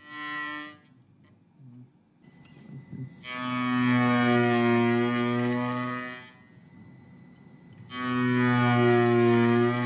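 A high-speed spindle's end mill cutting a steel bar dry, making a loud droning tone of steady pitch. It comes as a short burst at the start, then two cuts of about three seconds each, starting about three and eight seconds in, with quiet between.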